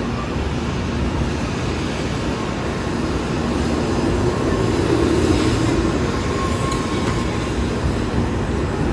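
Kyushu Shinkansen train running at speed: a steady, dense rumble of wheels and running gear with a faint steady whine, swelling slightly about halfway through.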